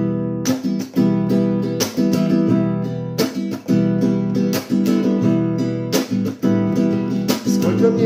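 Alhambra acoustic guitar strummed in an instrumental intro, chord strokes every half second to a second and a half, each left ringing.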